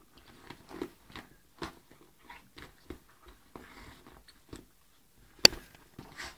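A pet chewing and biting on a toy: irregular short crunching bites, about two a second, with one sharp loud snap about five seconds in.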